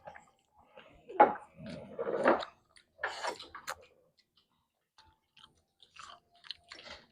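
Close-up chewing and crunching of kimchi, several crunchy bites in the first few seconds, then faint soft mouth clicks.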